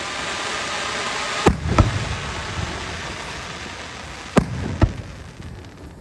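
Aerial fireworks going off: four sharp bangs in two close pairs, about a second and a half in and again about four and a half seconds in, over a hissing noise that slowly fades.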